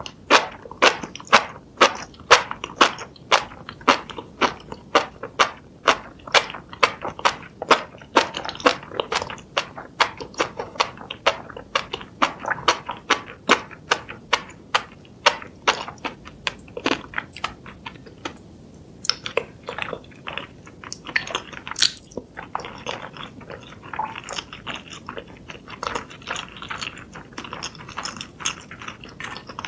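Close-miked chewing of a mouthful of spicy stewed food, with sharp wet mouth clicks about twice a second. After a brief pause a little past halfway, the chewing goes on softer and mushier.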